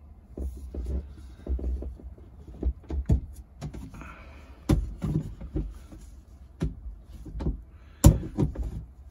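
Plastic sink drain trap being fitted back together by hand: irregular clicks and knocks of the plastic pipe and slip nuts, with the sharpest knock about eight seconds in.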